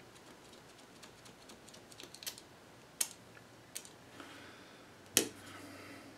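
Light, irregular clicks and taps from handling a small plastic bottle of diamond emulsion, with one sharper, louder click about five seconds in.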